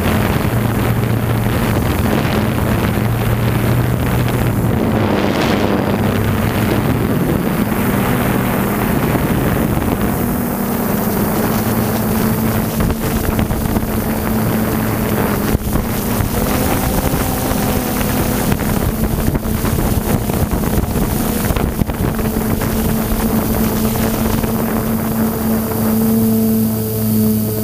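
DJI F550 hexacopter's six electric motors and propellers humming steadily, heard from the onboard camera, with wind rushing over the microphone. Near the end the wind eases and the motor hum stands out more clearly.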